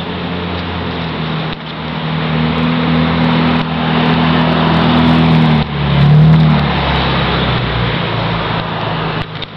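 An engine running with a steady low hum over a rushing noise, growing louder over the first few seconds and shifting in pitch about six seconds in.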